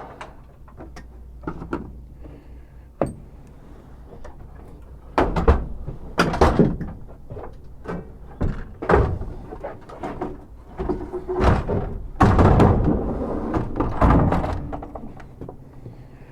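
A string of knocks, clanks and thumps as gear is moved around in a work truck: a toolbox stowed and a hand truck pulled out. The clatter comes in bunches, loudest about five to seven seconds in and again from about twelve to fifteen seconds.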